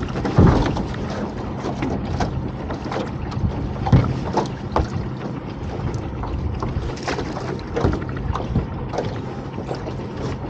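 A small boat's outboard engine idling steadily. Wind buffets the microphone, and there are scattered knocks as a rope is hauled in over the boat's side.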